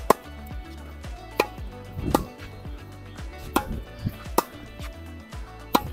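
Tennis balls struck back and forth with Dunlop CX 200 Tour rackets during a rally: sharp pops of ball on strings and court, at irregular spacing of roughly one a second.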